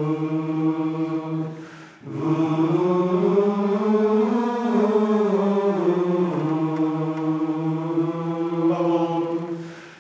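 Men's chorus singing long held notes as a vocal warm-up. One held note breaks off about two seconds in for a quick breath. The next rises in pitch and slides back down, is held steady, then stops just before the end.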